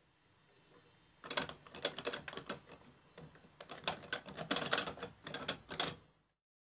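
Fingers rummaging and picking inside a small ceramic pot with a metal rim: a dense, irregular run of small clicks and rattles for about five seconds, starting about a second in and stopping shortly before the end.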